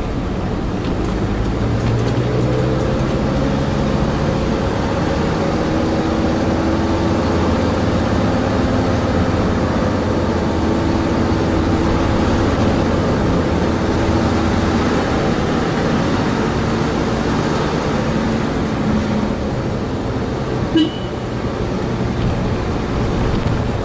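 Mercedes Sprinter 312D motorhome's five-cylinder turbodiesel running under way, with its engine drone and road noise heard from inside the cab, its pitch shifting slowly. A short sharp sound stands out about three seconds before the end.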